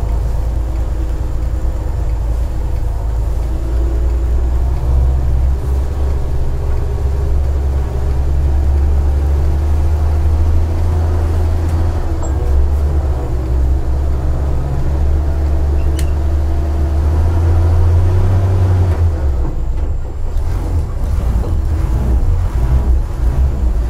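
Bedford RLHZ Green Goddess fire engine's straight-six petrol engine heard from inside the cab, pulling away and working up through the gears. Its low note dips and picks up again about twenty seconds in, as a gear is changed, and there is one sharp click about sixteen seconds in.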